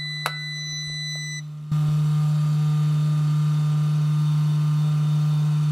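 Electric fuel pump switched on and running with a steady hum: a click about a quarter second in, then a jump to a louder hum with a faint whine just under two seconds in. The pump runs but sends no fuel out of the line.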